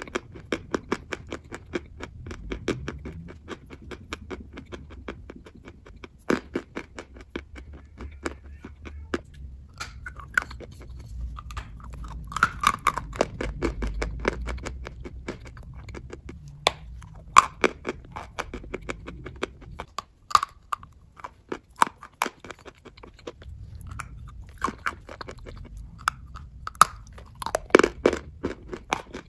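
Close-up chewing of dry chalk: a person biting into it and crunching it between the teeth, with many sharp, irregular dry crunches and crackles.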